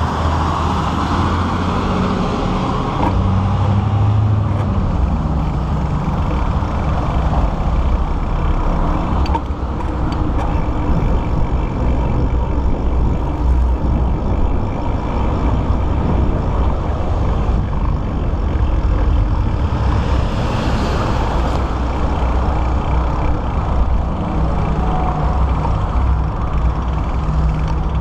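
Steady wind rush buffeting the microphone of a camera on a moving bicycle, with tyre and road noise underneath and a few short clicks.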